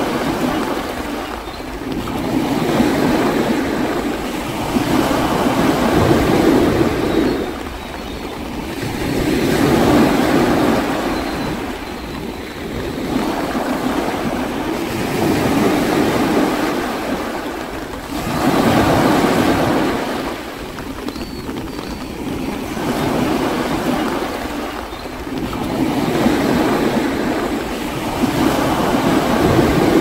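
Sea surf: waves breaking and washing in, rising and falling every few seconds.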